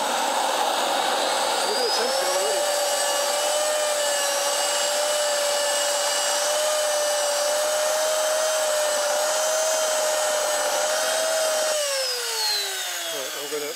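Lambert Kolibri T25 model jet turbine running up during a start: a steady rush with a high whine that rises and then holds as the engine accelerates through the fuel ramp to about 37,000 rpm. The exhaust temperature is climbing fast past 800 °C, a rough, overheating start. About twelve seconds in, the fuel is cut and the whine falls away as the turbine spools down.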